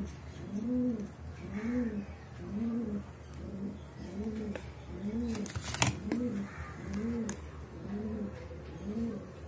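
A pigeon cooing over and over, a low coo that rises and falls a little more often than once a second. A single sharp click comes just before six seconds in.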